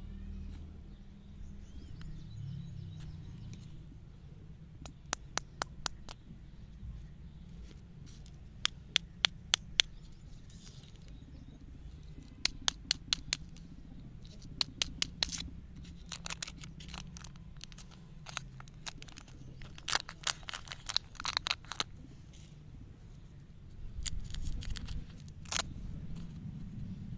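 Hands unwrapping lollipops and handling their wrappers and tattoo papers. The crinkling and crackling comes in several clusters of sharp clicks, over a low steady rumble.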